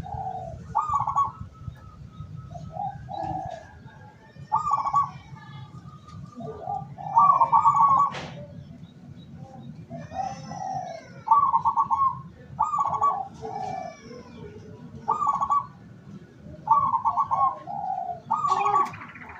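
Zebra doves (perkutut) cooing: a run of short, rapidly pulsed coo phrases repeating every second or two, some pitched higher and some lower, with faint higher chirps in between.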